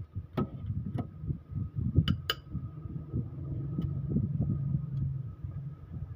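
Socket and extension being worked on the cylinder head bolts of a 2KD engine: about four sharp metal clinks in the first couple of seconds, over a low rumbling of handling noise.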